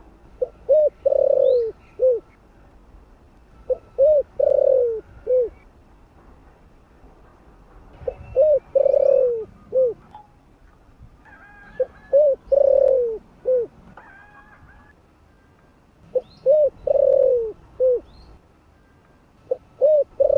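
Spotted dove (chim cu gáy) cooing its song: a low phrase of two short coos, a longer drawn-out coo and a short closing note, repeated about every four seconds, five times, with a sixth beginning at the very end. Faint chirps of small birds in the background.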